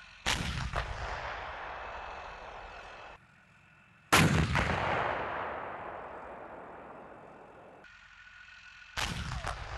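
Leopard tank main gun firing three times, each shot a sudden blast followed by a long rolling echo that fades over a few seconds. The first two echoes are cut off abruptly.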